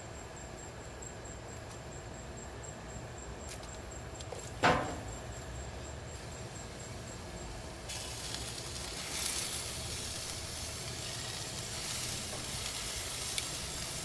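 Barbecue sauce and ribs sizzling on a hot gas grill as the sauce is spooned over the rack, the sizzle coming up about eight seconds in. A single loud knock sounds about five seconds in.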